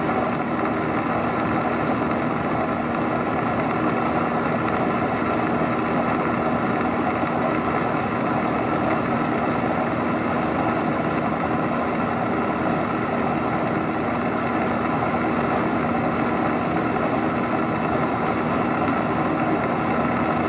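Carlton radial drill running steadily, its bit cutting a bolt hole through a steel plate, as an even machine hum with the noise of the cut. Its 250-volt DC motor is arcing and running on low voltage, by the owner's account.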